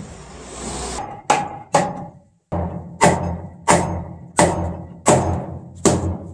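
Wooden floorboards being knocked into the frame of a traditional Korean wooden floor. A scraping hiss rises in the first second, then sharp wooden knocks follow: two close together, then one about every 0.7 s.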